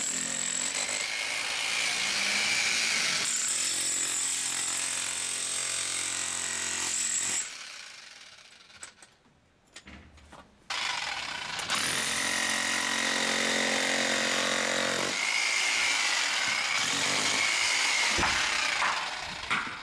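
Electric demolition hammer with a chisel bit running and breaking up a stone curb. It stops for about three seconds partway through, then starts again. Near the end it stops, and a few separate knocks follow.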